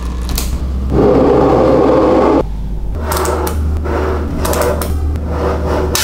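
Small magnetic balls clicking and snapping together as they are handled, with a dense rattling stretch from about one to two and a half seconds in.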